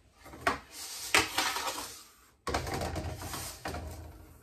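A stainless measuring cup knocking against a metal tray of toasted sesame seeds, twice, then scraping and scooping through the seeds in two stretches of grainy rustling, the second starting abruptly and fading out.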